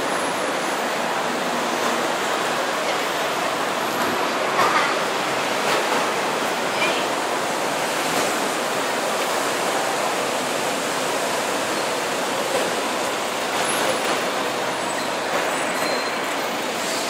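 Steady noise of busy city road traffic, an even hiss-like wash with no clear single vehicle standing out.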